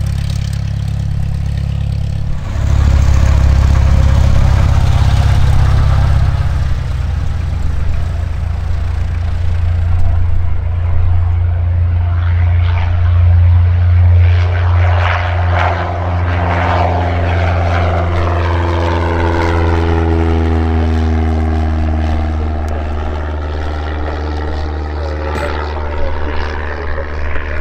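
Reims Cessna F172M Skyhawk's four-cylinder Lycoming O-320 engine and propeller going to full takeoff power about two and a half seconds in. It runs steadily through the takeoff roll and lift-off, passes close by at its loudest, then fades as the plane climbs away.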